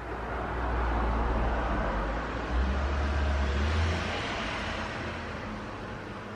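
A road vehicle passing by: a rumble and rushing noise that build over about a second, hold for a few seconds, then fade away.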